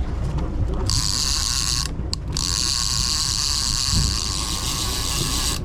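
Spinning reel's drag buzzing as line is pulled off by a hooked bluefish. It starts about a second in, breaks briefly just after two seconds, then buzzes on, over a steady low rumble.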